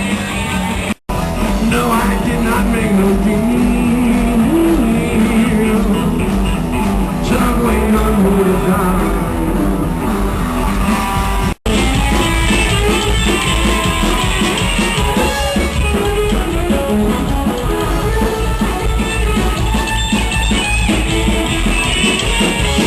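Rock music with electric guitar, drum kit and singing. The sound drops out abruptly twice, about a second in and about halfway through, as at edit cuts.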